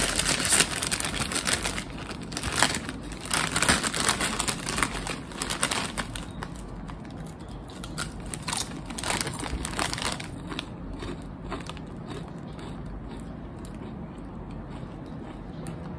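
A foil chip bag of Lay's Wavy Funyuns crinkling and tearing as it is pulled open and reached into, loudest in the first few seconds and dying down after about ten seconds. A wavy potato chip crunches as it is bitten around the middle.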